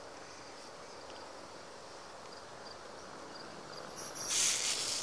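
Aerosol can of wasp-killer spray hissing in a hard, loud jet, starting suddenly about four seconds in, after a few seconds of faint steady background.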